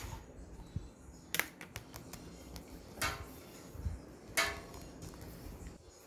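Handling noise: low bumps and rustling, with a few short sharp scrapes or crackles about a second and a half, three and four and a half seconds in.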